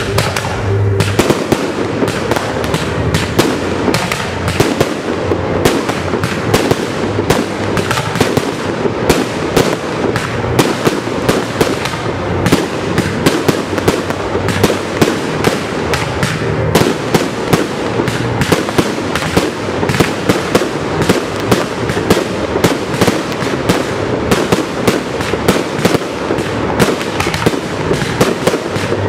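Fireworks display firing a rapid, continuous barrage: many sharp bangs a second, with crackle between them, as comets rise and star shells burst.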